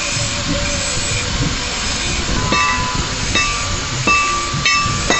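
Hammer blows on metal at a blacksmith's anvil: after a steady rushing hiss, several ringing strikes begin about halfway through and repeat at an even pace, roughly one and a half a second.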